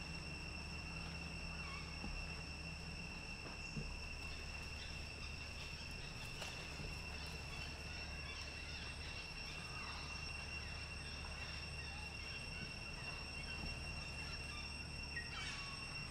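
Outdoor ambience dominated by a steady, high-pitched insect trill that never lets up, with a faint low hum beneath and a few faint, short chirps scattered through.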